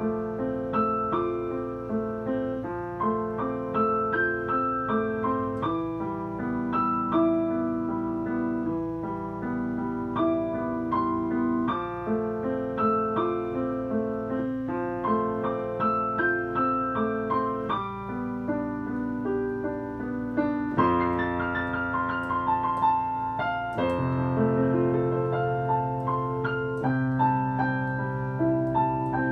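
Yamaha digital piano playing a solo arrangement of a slow Taiwanese ballad: a melody over a steady left-hand accompaniment. The playing grows fuller, with heavier bass notes, about two-thirds of the way through.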